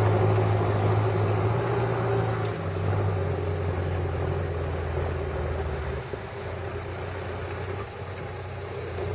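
John Deere tractor engine running steadily while pulling a plough, its pitch stepping down slightly about two and a half seconds in and again about six seconds in as it grows fainter.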